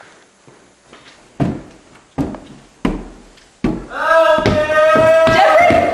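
Four heavy footfalls on stairs, about two-thirds of a second apart, then a long, loud, held scream starting just before four seconds in.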